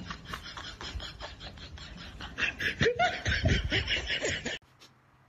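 A person laughing: quick breathy pulses at first, then loud, rhythmic laughter for about two seconds that cuts off suddenly near the end.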